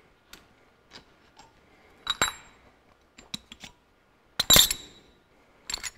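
Small loose steel parts clinking and clanking as they are handled and set down on top of a diesel engine's cylinder head. There is a scatter of light clicks, a sharper clink about two seconds in, and the loudest clank, with a short metallic ring, about four and a half seconds in.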